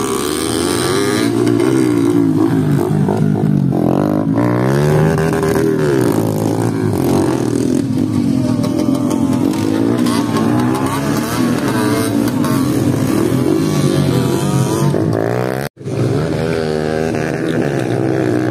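Several motocross bikes' engines revving hard and easing off as they ride the dirt track, their pitches rising and falling and overlapping. The sound cuts out for an instant about three-quarters of the way through.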